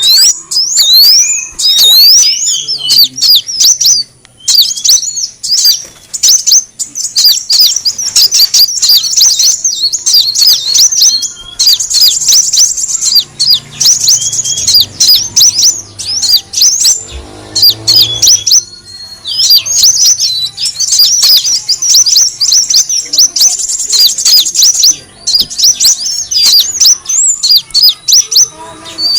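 Kolibri wulung sunbird calling: rapid runs of high, thin chirps, with a few short breaks.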